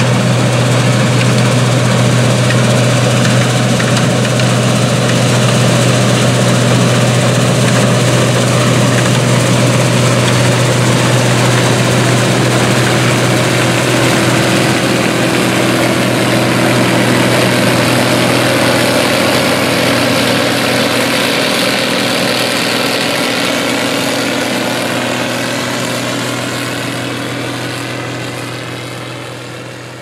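Case International 1680 Axial-Flow combine running steadily as it harvests soybeans, a strong steady engine hum under the machinery noise. It passes close by, and the sound fades gradually over the last ten seconds as it moves away.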